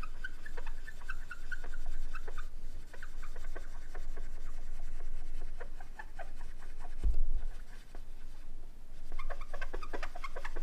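Cotton-tipped applicator wet with conditioner being scrubbed with firm pressure over an aluminium beam's surface: a run of short, scratchy rubbing strokes while the surface is cleaned and etched for a strain gauge. A low thump about seven seconds in.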